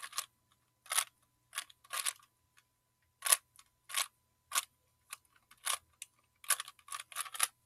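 Rubik's brand Rubik's Cube being twisted by hand: short plastic clicks and clacks as the layers turn, coming irregularly, with a quick run of several turns near the end.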